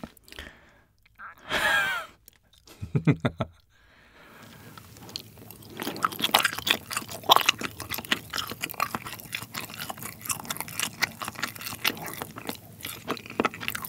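Close-miked chewing of colored pull-apart string cheese: soft, wet chewing with many rapid small clicks, steady from about five seconds in. Before that there are a couple of short sounds in the first few seconds.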